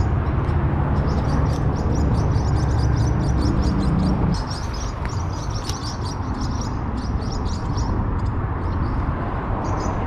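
Highway traffic rumbling, loudest for the first four seconds as a vehicle goes by, then easing to a steady hum. Birds chirp over it again and again.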